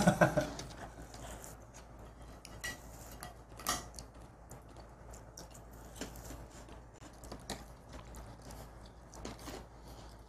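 Faint, scattered crisp clicks and small crunches of someone nibbling and licking a dalgona, a brittle honeycomb sugar candy, held at the mouth. A louder burst comes right at the start.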